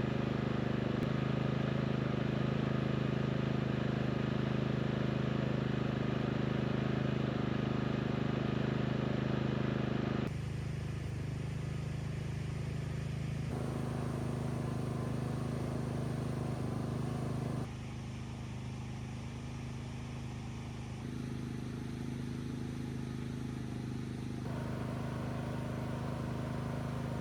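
Portable gas inverter generator running steadily under load, a constant engine hum. Its tone and level shift abruptly a few times.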